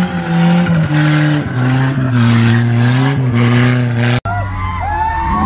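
Small car's engine running hard at high revs as the car drives on a flat, torn front tyre, its pitch dipping briefly about a second and a half in. It cuts off sharply about four seconds in, and people's voices follow.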